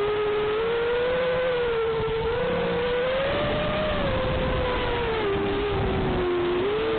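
FPV quadcopter's four Booster 2207 brushless motors and six-inch propellers whining in flight, the pitch rising and falling with throttle, with a dip about six seconds in. Recorded through the onboard Caddx Dolphin camera's microphone, which makes it sound muffled.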